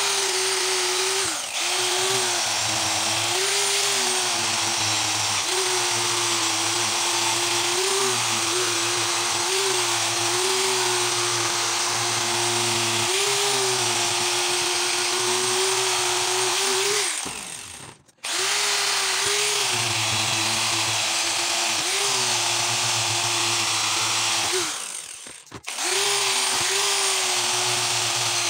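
Electric angle grinder with a sanding disc running against the steel blade of a rusty bill hook, grinding off rust: a steady motor whine over a grinding hiss, its pitch wavering slightly. It stops briefly twice, about two-thirds of the way through and again near the end.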